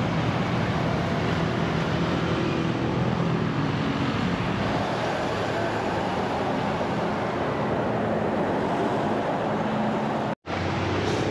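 Steady city traffic noise, vehicle engines running with a low hum. It cuts out for an instant near the end.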